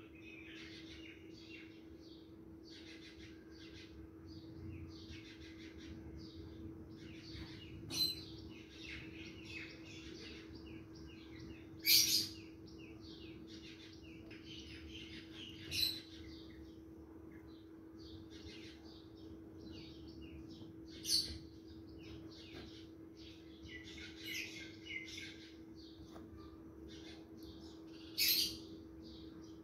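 Small birds chirping in quick clusters over a steady low hum, with about five sharp clinks of a metal spatula against the aluminium pot.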